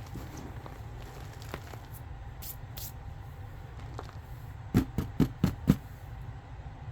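Gym chalk handled close to the microphone: a few faint crisp crackles, then a quick run of five dull thumps about five seconds in.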